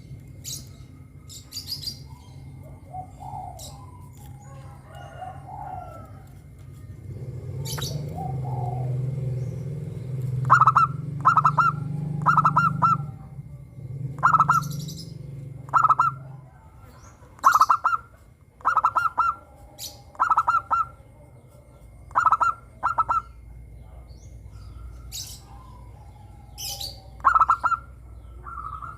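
Zebra doves (perkutut) cooing: short trilled call notes repeated every second or two from about a third of the way in, with high chirps from other birds scattered throughout.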